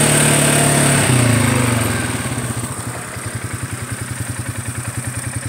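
ATV engine running under way, then easing off about two seconds in and settling into an idle with a fast, even putter as the quad comes to a stop.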